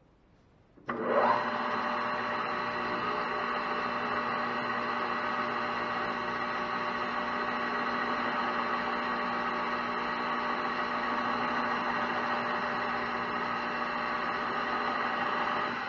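Metal lathe switched on about a second in, its motor and spindle running steadily with a hum and several steady whining tones.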